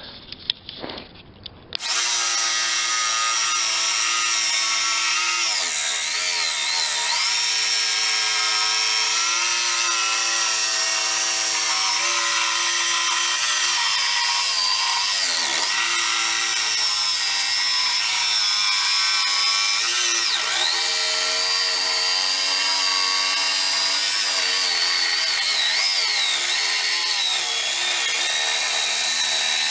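Jigsaw cutting plywood along a scribed contour line, running steadily with a whine whose pitch wavers as the blade loads and eases. It starts about two seconds in.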